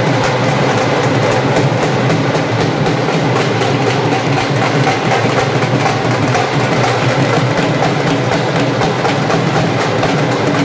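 A group of dhol and tasha drummers beating a fast, loud, continuous rhythm together.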